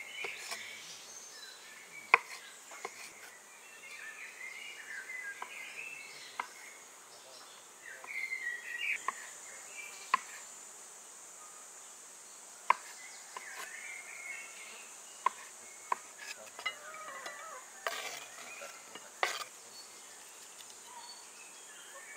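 A kitchen knife knocking down on a wooden cutting board in separate, irregular strokes while slicing olives, over a steady high insect drone.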